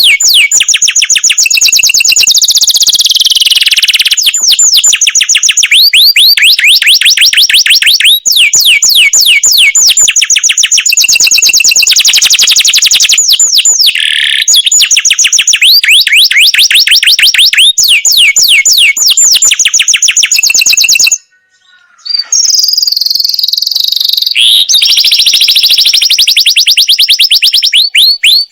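Domestic canary singing loud, long rolling trills of rapidly repeated high notes, switching from one trill to the next every second or two, with a break of about a second a little past two-thirds through.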